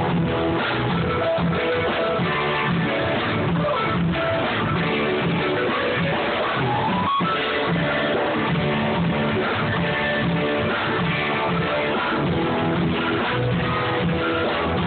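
Guitar-led rock music with a steady bass line, in a dull, low-quality recording with the highs cut off.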